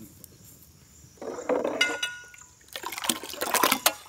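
Beaten egg mixture sloshing in a large steel pot as a steel ladle scoops through it, in two bouts, the first starting about a second in.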